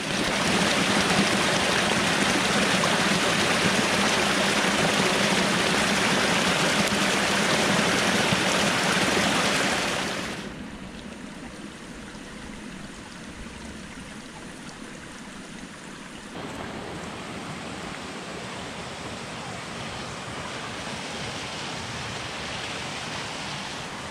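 Rushing water, like a stream flowing over rocks: a steady noise that is loud for the first ten seconds, drops suddenly about ten seconds in, and rises a little around sixteen seconds.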